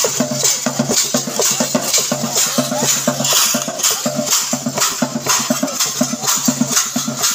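Traditional dance music: rattles and drums keep a fast, even rhythm of about four beats a second, with short pitched notes repeating over it.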